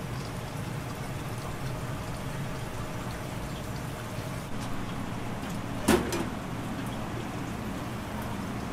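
Eel fillets sizzling and crackling on a wire rack under a gas broiler, over a steady low hum. A sharp knock about six seconds in.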